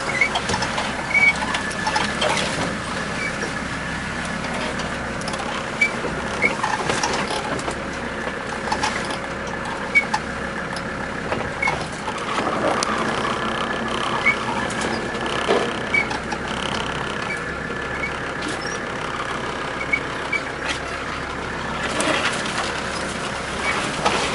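Car engine running, heard from inside the cabin, as the car drives over a rough sandy forest track, with many short knocks and rattles from the bumps.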